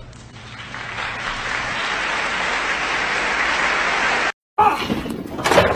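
Applause that swells up over the first second, holds steady, then cuts off abruptly a little over four seconds in. After a brief gap, a person's voice and a few sharp knocks follow.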